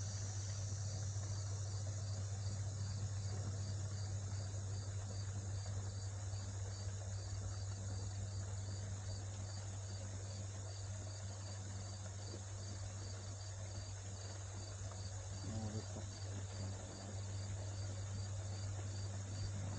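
Insects chirping in a steady, even pulse, a few chirps a second, over a steady low hum.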